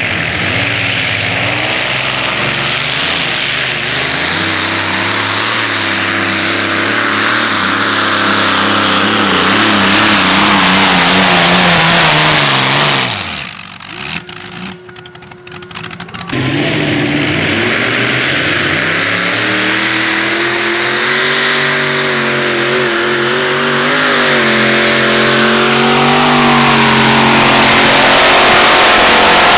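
Modified pulling tractors' racing engines at full throttle while pulling the sledge, their pitch bending up and down with the load. The sound drops away about 13 seconds in. A second tractor's supercharged V8 then comes in and climbs steadily in pitch near the end.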